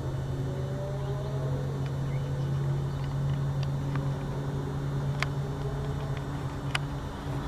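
A steady low motor hum with a few overtones above it, and a few faint short ticks about five and seven seconds in.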